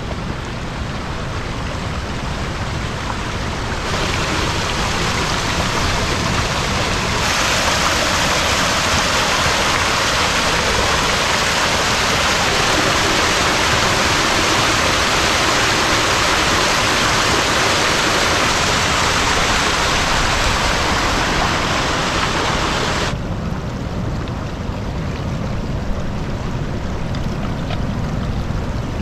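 Fast-flowing creek spilling over a small drop under driftwood logs: a steady rush of splashing water. It grows louder a few seconds in and drops back about six seconds before the end.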